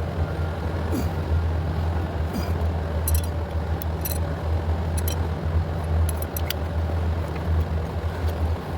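Light metallic clicks and clinks, scattered a few times a second or less, as fuel injectors are worked on the fuel rail, over a steady low hum.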